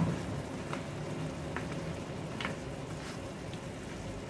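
Pork hamonado simmering and sizzling in its thick, sugary sauce in a pan, with a few faint clicks.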